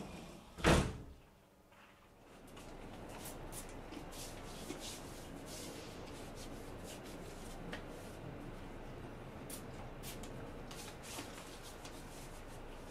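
A sliding balcony door slides once, a short loud rush about a second in. Then faint steady outdoor background with small scattered clicks and rustles.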